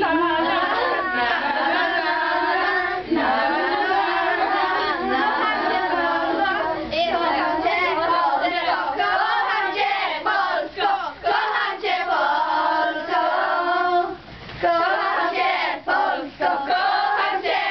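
A group of young girls singing together in chorus.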